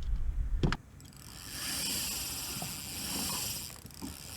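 Fishing line hissing off a reel with a high whine for about three seconds, as on a cast, after a sharp click about a second in.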